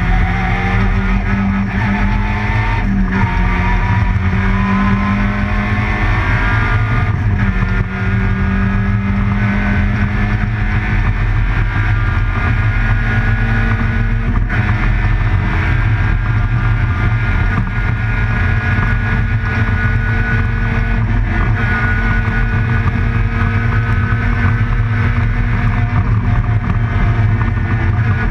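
Group A rally car's engine heard from inside the cockpit at racing speed, revving hard, its pitch climbing with short breaks at gear changes in the first half, then held high. A heavy low rumble of road and drivetrain noise runs underneath.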